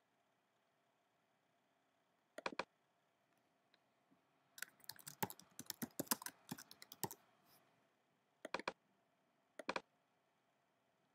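Faint typing: a run of about fifteen quick keystroke clicks in the middle as a short title is entered, with a few pairs of single clicks before and after it.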